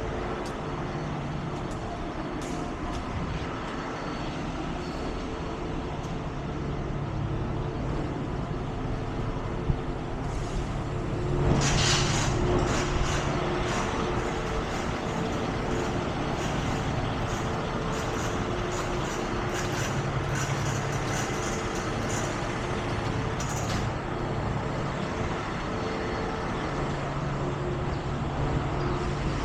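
Heavy tow truck's diesel engine idling steadily, with a short burst of air hissing about eleven seconds in and scattered short clicks and hisses after it.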